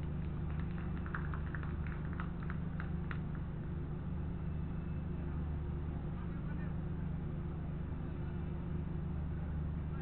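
Steady low hum, with distant shouts and calls from players on the pitch during the first three seconds.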